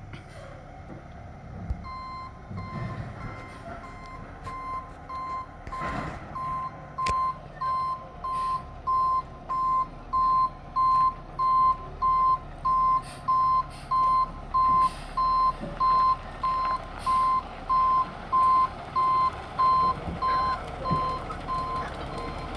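Reversing alarm on an Autocar ACX Heil front-loader garbage truck as it backs up: one steady beep repeating a little over once a second, growing louder over the first several seconds, over the diesel engine running. A few sharp knocks come through between the beeps.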